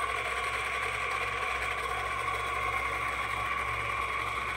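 Seong Kwang SKR-1000 radial arm drill with its spindle running steadily at its maximum speed of 1250 rpm: an even whine over a low hum.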